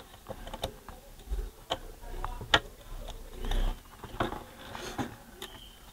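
Irregular small clicks and light knocks of a screwdriver and small metal and plastic parts as a CD player's laser pickup is fitted and screwed back into its mechanism, with a couple of dull low thumps in between.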